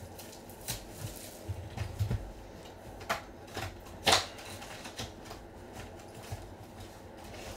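Scattered light clicks and taps of handling as sealed trading card boxes are opened, a dozen or so irregular clicks with the loudest about four seconds in.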